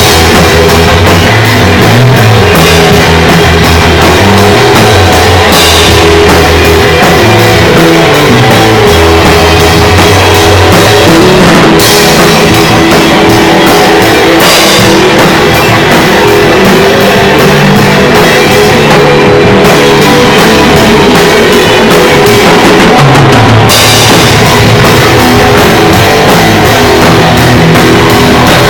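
Loud rock music played on drum kit and guitars, with a driving beat and no let-up.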